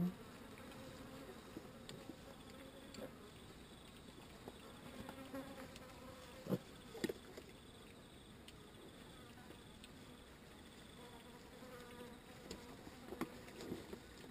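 Faint steady buzzing of flying insects, with a few brief sharp knocks, the clearest about six and a half and seven seconds in.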